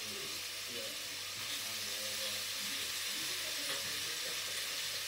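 Beef steak sizzling steadily in a hot frying pan.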